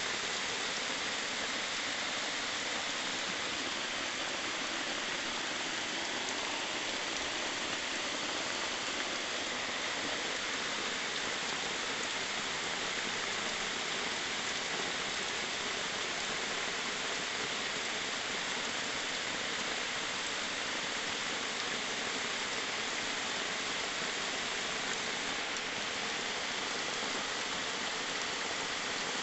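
Heavy rain falling steadily on a plastic tarp overhead and on the forest around it.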